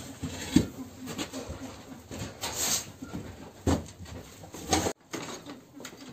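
A broom sweeping a concrete floor in short scraping strokes, with bird calls from the cages around it.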